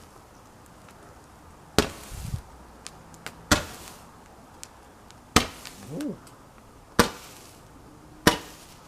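Fireworks going off: five sharp bangs about a second and a half apart, with faint crackles between them.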